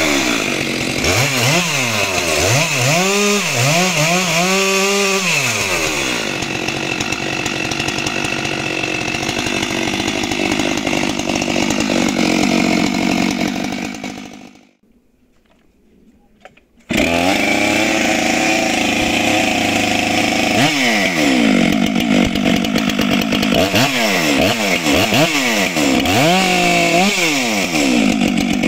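Stihl MS462 two-stroke chainsaw running at high speed, its engine pitch swinging up and down about once a second at first and again near the end, held steady in between. About halfway through the sound fades away for a couple of seconds and comes back suddenly.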